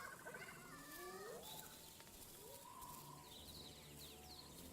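Distant spotted hyenas giving faint, rising whoop calls, several in the first second and a half, with small high chirps of birds or insects later on.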